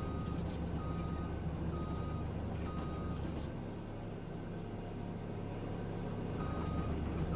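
Heavy machine's engine running steadily with a reversing alarm beeping about once a second, four beeps, then a pause and one more beep near the end.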